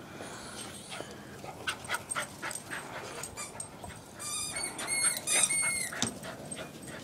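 Dog whimpering: a few short high-pitched whines about four to five seconds in, after a stretch of soft clicks and rustling.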